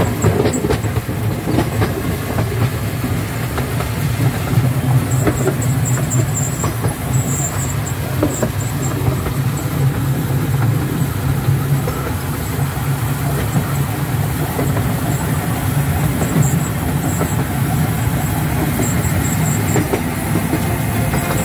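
Small narrow-gauge tourist log-cart train running along its track, heard from inside its open cab: a steady low rumble of the moving car with occasional clicks.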